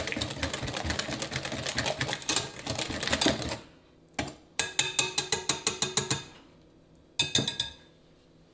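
Hand whisk beating a thin chocolate sauce in a bowl, a fast, even clatter of the wires against the bowl that stops about three and a half seconds in. Two shorter runs of evenly spaced clicking strokes follow, the second brief and near the end.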